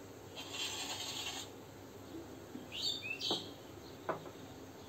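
A bird chirps a few quick falling notes about three seconds in, over a faint hiss, with a short hissy rustle near the start and a few light clicks.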